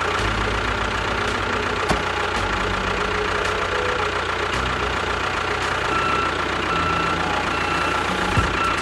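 Engine idling with a steady, rapid low chug, typical of the tractor engine sound in miniature tractor videos.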